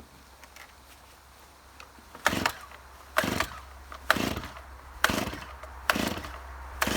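Stihl MS290 Farm Boss two-stroke chainsaw being pull-started cold on full choke: about two seconds in, five quick recoil-starter pulls, roughly one a second, the engine turning over without starting.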